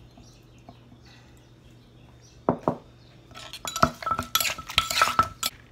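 Wooden pestle knocking in a wooden mortar while a metal spoon clinks and scrapes against it as the papaya salad is pounded and mixed. A couple of knocks come about two and a half seconds in, then a rapid clatter follows for about two seconds.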